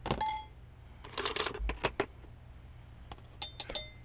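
Small metal pieces clinking against metal, ringing briefly: one clink at the start, a quick run of clinks about a second in, and another run near the end, the sound of tools and parts being handled during a teardown.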